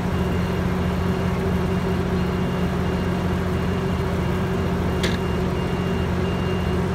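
Metrolink diesel-electric locomotive idling at the platform, a steady low engine rumble. Over it, a thin high electronic beep repeats about one and a half times a second, with one short sharp click about five seconds in.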